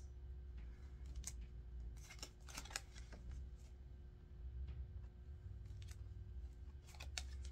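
Tarot cards being handled one after another: scattered soft clicks and slides of card stock as cards are picked up, shown and set down, over a faint steady hum.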